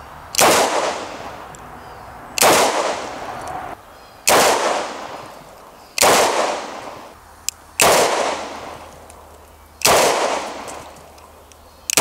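Smith & Wesson 686 Performance Center .357 Magnum revolver firing slow, aimed shots: six sharp reports about two seconds apart, each trailing off over a second or so, with a seventh shot just at the end.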